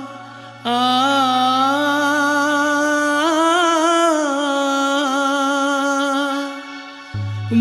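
Background music: a long, held, wavering chant-like melody over a steady low drone. It drops out briefly about a second in and fades near the end, as a new drone starts.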